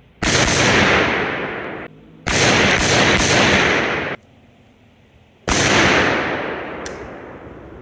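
Gunfire: three loud volleys of shots, each starting sharply and ringing out for a second or two; the middle one holds several shots in quick succession.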